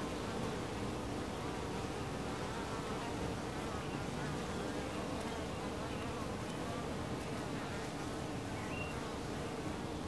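Honey bees buzzing at a hive entrance: a steady hum of many wings, with the pitch of single bees wavering as they fly in and out close by.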